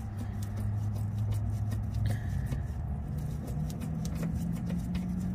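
Small clicks and scrapes of a 14 mm wrench being fitted to a rear brake caliper bolt. They run over a steady low hum that steps up in pitch about halfway through.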